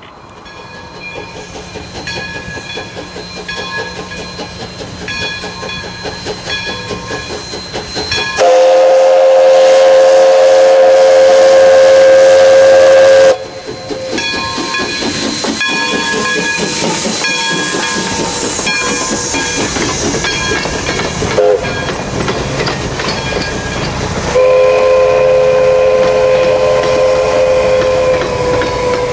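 Essex Terminal 9 steam locomotive approaching and passing, its running sound growing louder. Its steam whistle sounds two long blasts: one about eight seconds in that lasts about five seconds and cuts off sharply, and another that starts near the end. Wheels clack on the rail joints as the coaches go by.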